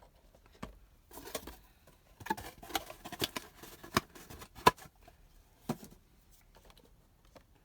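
Cardboard and plastic packaging of a Funko Pop figure being handled, with scattered soft rustles and several sharp clicks.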